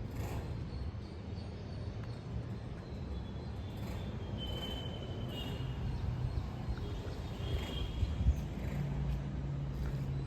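Outdoor background with a steady low rumble like distant traffic, and a few faint high chirps about halfway through.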